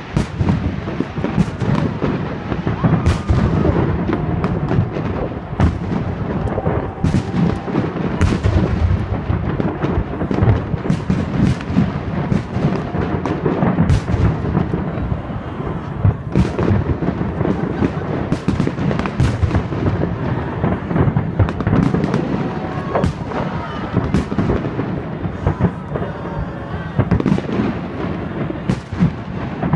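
Aerial firework shells bursting in a continuous barrage: many sharp bangs in quick succession over a steady low rumble, each bang trailing off in reverberation.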